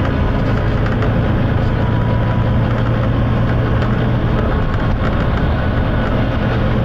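Volvo B9TL double-decker bus's diesel engine running hard at a steady speed, heard from on board over loud road and body rumble. It holds a constant low drone.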